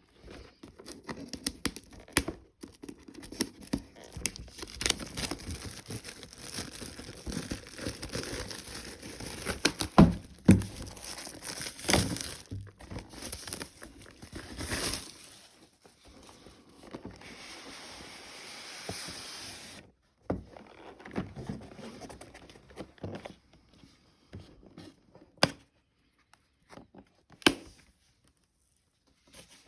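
Plastic shrink-wrap crinkling and being torn off a cardboard collector's box, with taps and knocks as the box is handled. About two-thirds of the way in there is a steady rustle lasting a few seconds, then only scattered taps and clicks.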